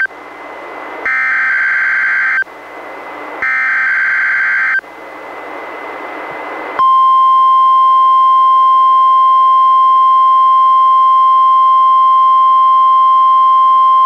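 NOAA Weather Radio emergency alert test tones received on a weather radio. Two short SAME digital header bursts, each about a second and a half, are separated by radio hiss. About seven seconds in, the steady 1050 Hz warning alarm tone starts and holds.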